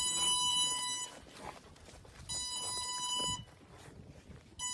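Electronic buzzer sounding a steady high beep, about a second on and a second off: two long beeps and the start of a third near the end.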